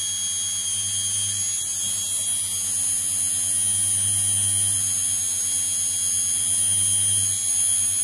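Washing machine universal motor running steadily under a TDA1085C tachogenerator-feedback speed controller, a steady electric hum and whine. Fingers pressed against the pulley load it, and the low hum swells a little a few times as the controller raises the voltage to hold the speed.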